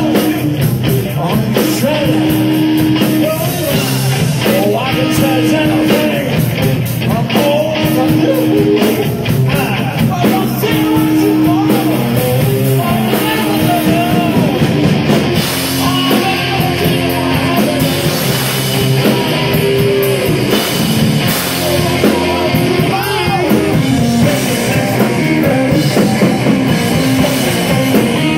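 Live blues-rock trio playing loud, with electric guitar and electric bass.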